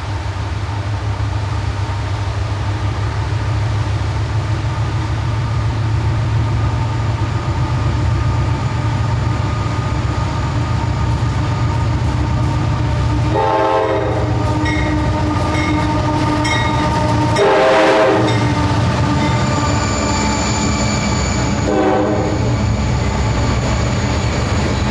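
Diesel freight locomotives running as they approach and pass, a low rumble that grows steadily louder. Their air horn sounds three blasts: a short one about halfway through, a longer, louder one a few seconds later, and a short one near the end, as the refrigerated boxcars roll by.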